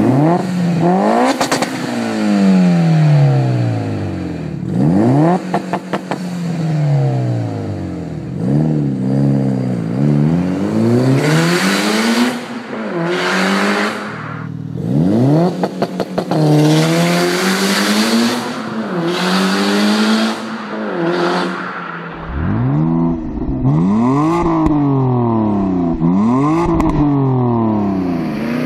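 A 345 whp Mitsubishi Lancer Evolution IX's turbocharged four-cylinder being revved again and again, each rev rising and falling in pitch, with short crackles between some revs. About 22 seconds in it switches to a BMW 325i E90's straight-six revving through a BMW Performance rear silencer, with a deeper rumble.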